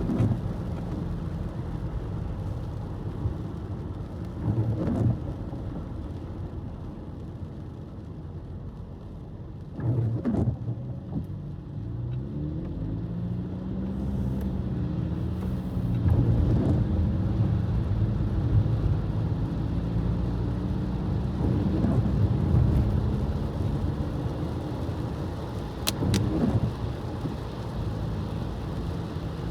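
Car driving on a wet road: a steady low rumble of engine and tyres, with the engine's pitch rising and falling in the middle as it speeds up. A few short thumps come through, about 5, 10 and 26 seconds in.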